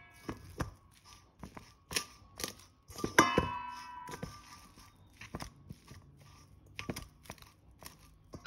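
A metal spoon mixing raw minced beef in a stainless steel bowl: soft squelching and scraping, with scattered clicks and one ringing clink against the bowl about three seconds in.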